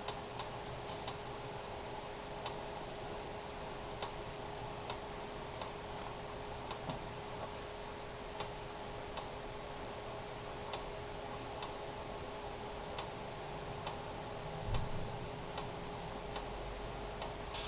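Pot of vinegar-and-sugar pickle brine kept simmering on the stove, with faint irregular pops and ticks over a steady hum. There is a soft low thump late on.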